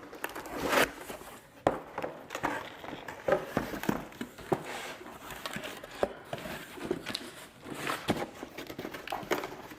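Fabric and packaging being handled, rustling and crinkling with many light, irregular clicks.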